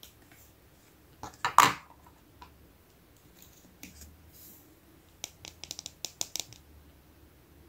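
Small plastic toy pieces clicking and tapping as they are handled and set down. There is a louder knock about one and a half seconds in, then a quick run of light clicks near the end.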